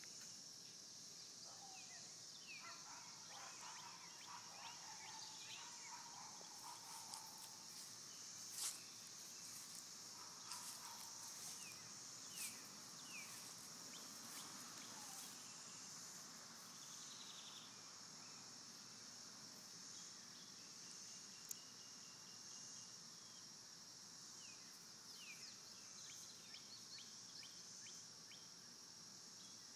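Faint outdoor ambience: a steady high-pitched insect drone, with scattered short falling bird chirps and a few soft knocks, the loudest about nine seconds in.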